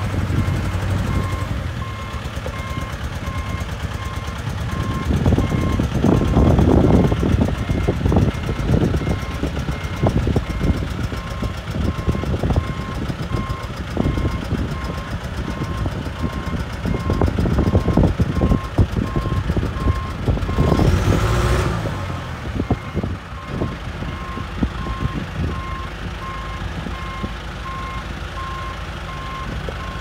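John Deere 310G backhoe loader on the move: its diesel engine running under the steady, evenly repeating beep of the backup alarm, with irregular knocks and rattles from the machine. A short rising whine comes about two-thirds of the way through.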